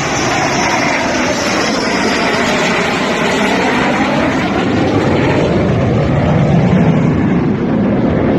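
Dassault Rafale fighter jet flying low overhead on its landing approach: its twin turbofan engines make a loud, steady jet noise that grows a little louder as it passes, and its pitch glides as it goes by.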